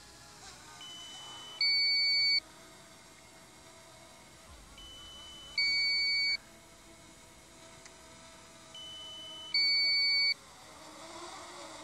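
Electronic warning beeps from the DJI Mini 2's remote control with the drone's battery down to 20%: a softer single tone, then at once a louder two-pitch beep, each under a second long, repeating about every four seconds, three times.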